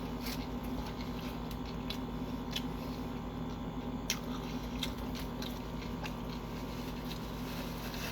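A person chewing a mouthful of a cold cut Subway sub, with wet mouth clicks every so often over a steady low hum.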